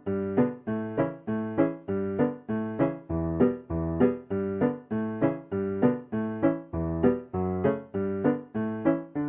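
Background music: an electric piano playing a steady, repeating pattern of struck chords, about two to three a second.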